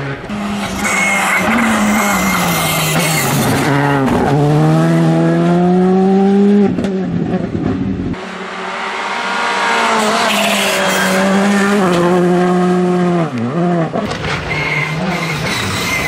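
Skoda Fabia R5 rally car's turbocharged four-cylinder engine on full throttle, revving up and snapping through quick upshifts on two separate runs. The sound breaks off and starts again about eight seconds in.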